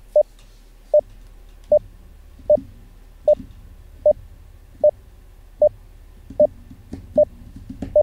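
Morse code letter E, a single short 600 Hz dit, sounded over and over by an online Morse trainer. About ten evenly spaced beeps, one every three-quarters of a second or so.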